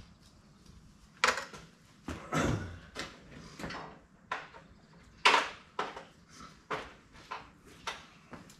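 Metal tool chest drawers sliding open and shut, with tools clattering inside, in a series of sharp clacks; the loudest comes about five seconds in.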